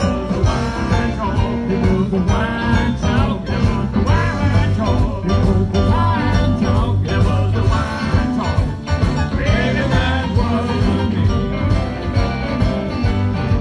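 Live blues band playing amplified: electric guitar over bass guitar and a drum kit, with a steady beat and bending guitar notes.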